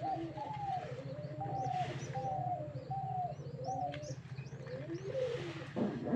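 Several pigeons cooing in short, overlapping arched calls, with a few faint high chirps above them and a steady low hum underneath.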